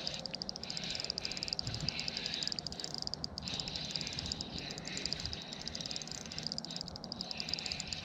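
A steady chorus of frogs calling, a fast pulsing trill that carries on without a break.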